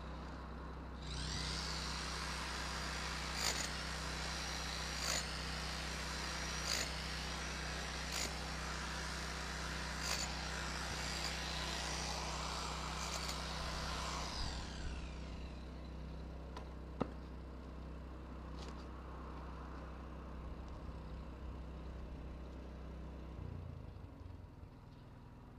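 Grinder running under load: a harsh, hissing grind with a sharper flare about every second and a half. About fourteen seconds in the grinding sound winds down, leaving a quieter low steady hum with a single sharp click a few seconds later.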